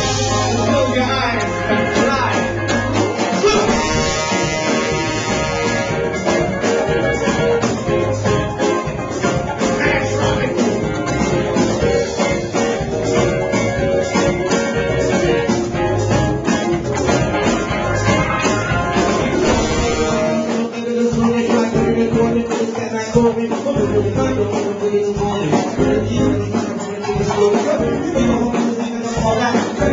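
Live band playing upbeat Latin funk, with saxophone, congas and electric guitar over a steady beat. The bass thins out about two-thirds of the way through.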